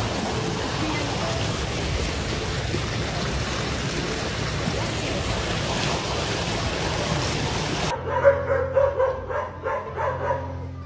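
Fast-flowing floodwater rushing and churning around a person's legs, a loud steady rush. About eight seconds in it cuts to a dog barking rapidly, several barks a second, over a low music drone.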